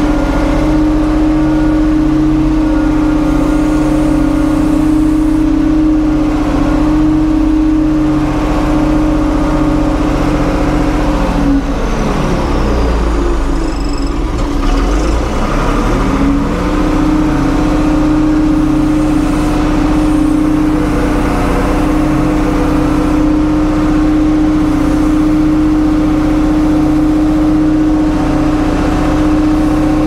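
1975 Ford 550 backhoe's diesel engine running steadily at working revs. Its note dips in pitch and comes back up over a few seconds midway.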